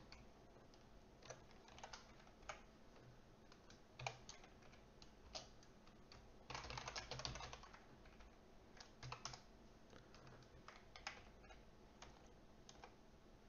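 Faint typing on a computer keyboard: scattered single keystrokes, with a quick run of keys about halfway through.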